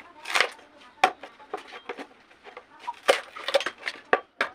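Knife blade chopping and chipping at a dry bamboo tube: a string of irregular sharp chops, two or three a second.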